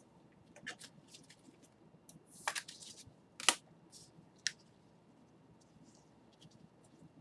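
Foil trading-card pack wrappers crinkling and cards being handled by gloved hands: scattered short crackles and clicks, the loudest about halfway through.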